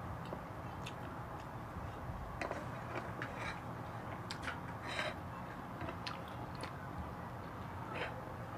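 Close-miked eating with the hand: scattered soft mouth clicks and smacks of chewing, along with fingers working food in a bowl. A steady low hum runs underneath.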